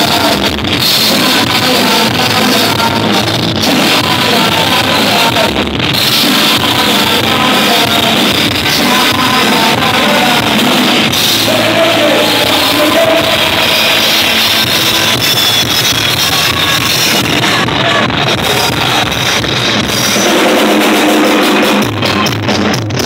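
Live rock band playing loud, with a singer over electric guitars and a drum kit, heard from the audience.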